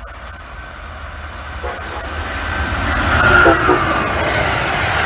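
Amtrak passenger train passing at speed: the rumble and rush of its wheels on the rails grows louder as it approaches and is loudest about three and a half seconds in as the cars go by, with a faint whine at the peak.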